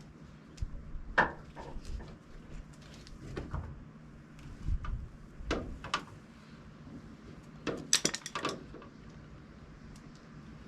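Scattered light knocks and clicks of hand tools and metal hardware being handled, with a quick run of sharp clicks about eight seconds in.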